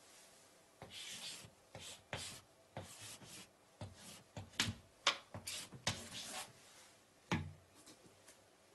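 Chalk writing on a chalkboard: a run of short scratching strokes and sharp taps as figures are chalked up, with a harder knock of chalk on the board near the end.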